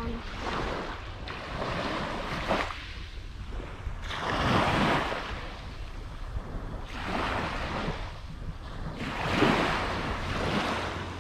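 Small waves breaking and washing up a shelly beach, a surge every two to three seconds, with wind rumbling on the microphone.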